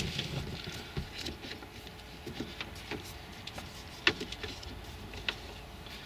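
Rubber door weather stripping being pressed back onto the door-opening flange by hand: scattered soft taps and rubbing, with one sharp click about four seconds in.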